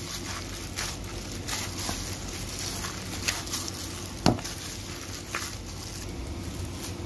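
Hand kneading soft pizza dough in a plastic bowl: soft, irregular squishing and patting, with one sharp knock a little past halfway.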